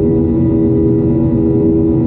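Boeing 737's turbofan engine heard through the cabin wall in flight: a steady drone with an even hum over a low rumble.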